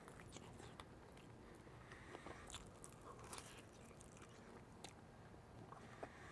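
Faint biting and chewing of a crispy, sauced grilled chicken drumstick, with a few small irregular crunches.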